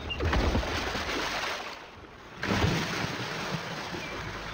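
Nile crocodiles thrashing in shallow river water as rival males fight, in two bouts of heavy splashing; the second starts about two and a half seconds in.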